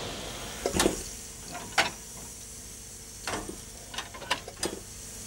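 About six sharp metallic clanks and clicks of steel parts knocking together, spaced irregularly over a few seconds.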